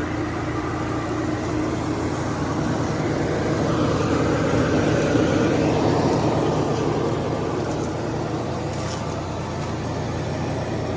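Vehicle engine idling steadily with a low hum; a wider rushing noise swells in the middle and eases off again.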